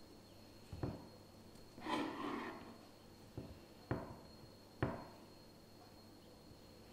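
Knife and hands working rolled cinnamon-roll dough on a wooden cutting board: three sharp knocks on the board, and a brief soft rubbing about two seconds in.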